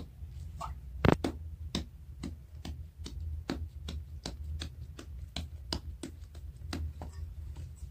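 Hands shaping a ball of naan dough, patting and slapping it between the palms in a quick even rhythm of about two to three pats a second, one sharper slap about a second in, over a low steady hum.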